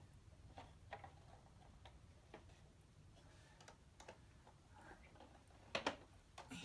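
Faint, scattered clicks and taps of a plastic Bruder toy truck and its driver figure being handled, with two louder clicks close together near the end.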